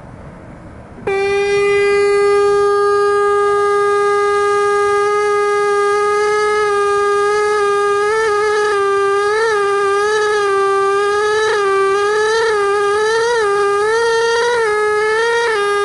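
Pneumatic air scribe switching on about a second in with a loud, steady, high buzz. From about eight seconds in its pitch wavers and dips in short bumps as the stylus is pressed into and chips the rock matrix beside a fossil tooth.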